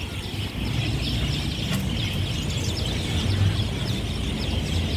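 Dense chorus of many small birds chirping, short high notes repeated rapidly and without a break, over a low steady rumble.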